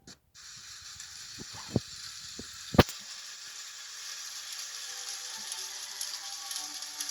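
Battery-powered toy train running: a steady hissing whir that switches on abruptly, with a few sharp clicks in the first three seconds, the loudest just before three seconds in.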